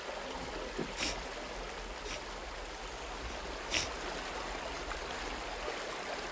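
Flowing river water, a steady rush, with three brief sharp clicks over it at about one, two and nearly four seconds in.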